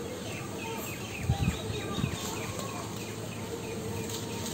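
Outdoor background chirping: a rapid run of short, falling chirps, about three a second, over a faint steady hum. A couple of low thumps come between one and two seconds in.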